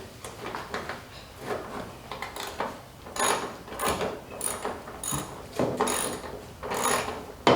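Ratchet wrench working a bolt, a quick run of clicks on each back-swing, repeating about every half second to second through the second half.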